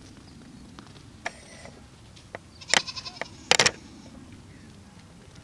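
A brief, high-pitched animal call about halfway through, with a few sharp clicks around it.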